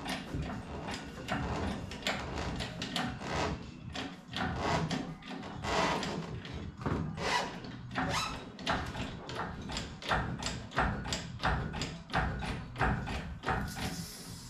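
Hand-pumped hydraulic engine hoist lifting a truck cab: a quick, uneven run of clicks and knocks, about two or three a second, from the pump strokes and the loaded boom. A brief hiss near the end.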